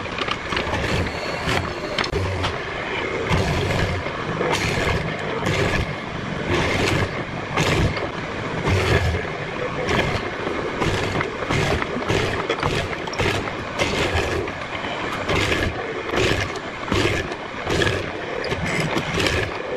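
Hollow-chisel mortiser running, its square chisel and auger plunging repeatedly into a pine beam to cut a mortise, with a sharp cutting stroke a little more than once a second.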